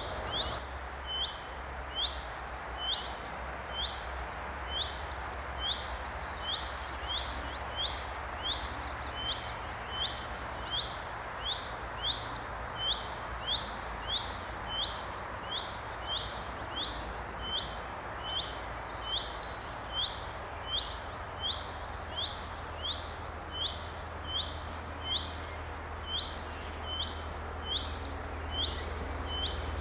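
A bird repeating one short, rising chirp about one and a half times a second without a break. Under it is the low rumble of the approaching PS-00.M rail vehicle, which grows louder near the end.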